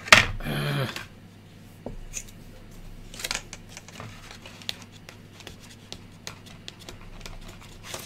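Craft knife cutting and picking at hard plastic tape sealed on a paper manual: scattered small clicks, short scrapes and crinkles of paper and plastic. A sharp sound opens it, followed by a brief sound of the voice.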